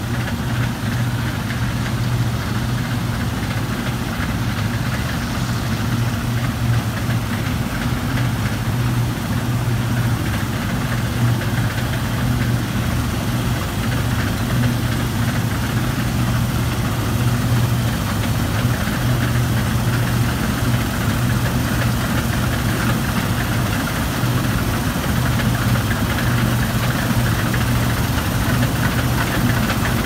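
Combine harvester running steadily while harvesting standing grain: a loud, even engine drone with a strong low hum.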